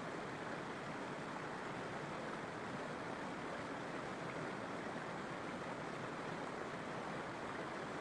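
Water rushing steadily over the rocks of a forest waterfall and stream: an even, unbroken rush.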